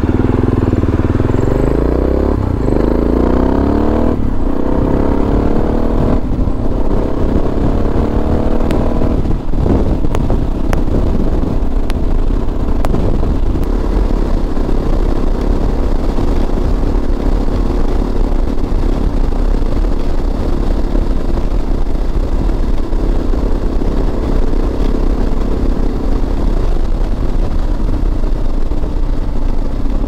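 Suzuki DR650 single-cylinder four-stroke engine under way. It accelerates over the first nine seconds or so, its pitch rising in steps with the gear changes, then settles to a steady cruise over a low wind rumble.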